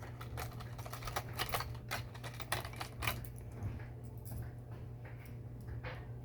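Rapid small clicks and crackles of a plastic lure package being handled and opened, thick for about the first three seconds and then sparse, over a steady low hum.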